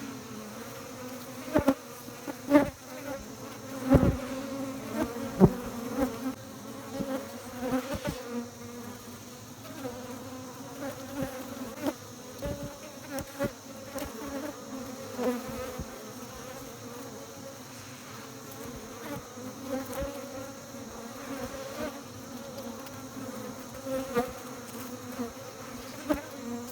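Honey bees buzzing in a steady, many-bee hum, with frequent short, louder buzzes as single bees come close.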